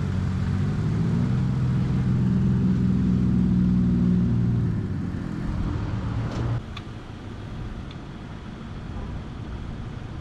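A vehicle engine running steadily, then dying away about five or six seconds in, followed by a few light clicks.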